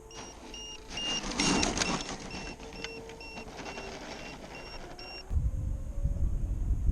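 Electronic beeping, short high beeps repeating about two and a half times a second, which stop just after five seconds in; a brief rustling noise comes over it between one and two seconds. From about five seconds in, wind buffets the microphone with a loud, uneven low rumble.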